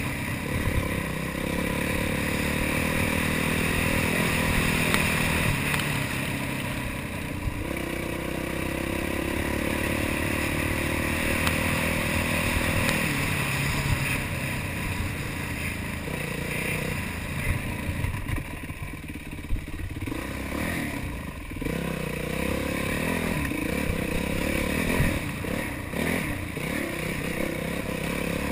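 Yamaha YZ450F dirt bike's single-cylinder four-stroke engine under way, heard on board: held at a fairly steady pitch for about the first half, then revving up and down with brief throttle drops in the second half.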